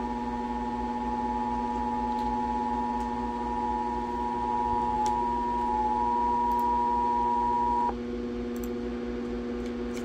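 Emergency Alert System two-tone attention signal (853 and 960 Hz sounding together), a steady loud dual-tone whine held for about eight seconds and cut off abruptly. It announces an incoming alert, here a severe thunderstorm warning. A steady lower pitched drone runs under it and continues after the tone stops.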